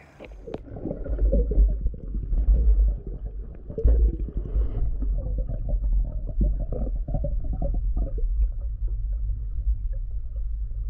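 Muffled underwater rumble of water moving around a diving spearfisher's camera housing, with irregular knocks and swishes that are busiest in the first few seconds and settle to a steadier low rumble near the end.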